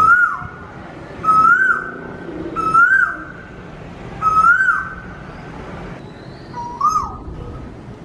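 Male Asian koel calling: five whistled notes, each rising and then dropping, about a second and a half apart with a longer gap before the last, which is a little lower.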